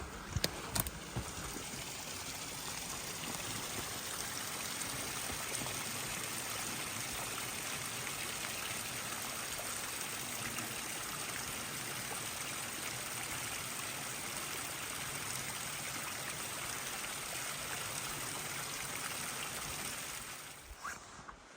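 Steady rush of running water, like a stream, with a few sharp clicks in the first second; it stops abruptly about twenty seconds in.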